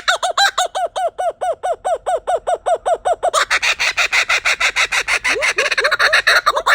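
Laughing kookaburra giving its laughing call: a fast run of rolling, repeated hoots, about seven a second, that breaks a little past halfway into a harsher, raspier cackle.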